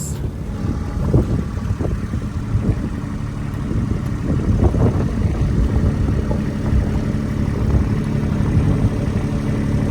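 Kubota farm vehicle's engine running steadily at a low, even pitch.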